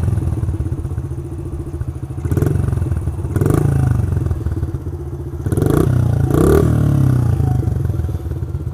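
Small single-cylinder four-stroke engine of a Honda CRF50 mini dirt bike running with a fast, steady putter. Its revs swell and rise briefly a few times.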